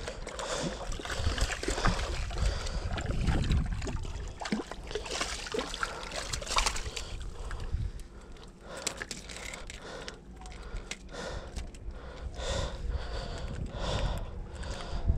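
A spinning reel being cranked to bring in a hooked fish, with water splashing and sloshing against the rocks. Wind rumbles on the microphone throughout.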